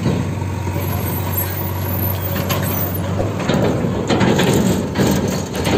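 Ashok Leyland tipper truck's diesel engine running as the truck drives up and passes close by; a steady low hum at first, growing louder and rougher from about halfway through.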